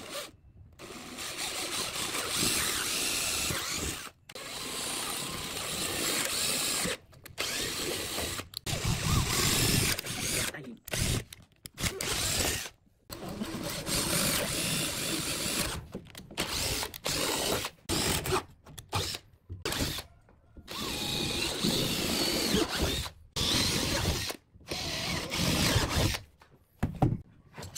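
Power drill with a twist bit boring holes into a thick pine disc. It runs in bursts of a few seconds that start and stop abruptly, over and over.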